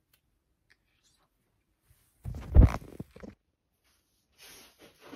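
About two seconds in, a loud scraping rustle with a low thump, then fainter rustles near the end: handling noise while putting on knee-high black leather platform boots.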